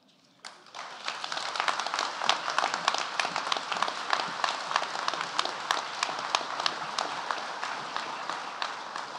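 Audience applauding: many hands clapping, starting about half a second in and slowly dying away toward the end.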